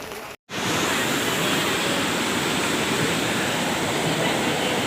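Heavy tropical downpour with running water, a loud steady rushing roar. It cuts out for a moment about half a second in, then comes back louder.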